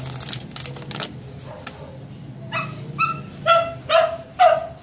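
A dog barking repeatedly in short, evenly spaced barks, about five in the second half. Before the barks, crinkling plastic packaging is handled for about the first second and a half.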